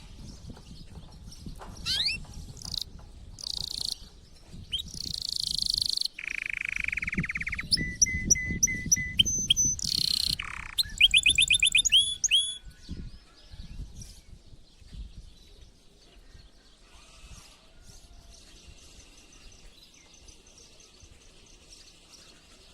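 Male domestic canary singing in breeding condition: a string of varied song phrases with fast rising sweeps, buzzy bursts, a low rattling trill and quick runs of repeated whistled notes. The song is loudest in the first half and turns faint after about two-thirds of the way in.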